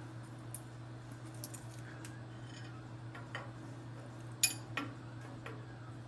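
A few light metallic clinks and taps as steel tools are handled against steel tubing, the sharpest about four and a half seconds in, over a steady low hum.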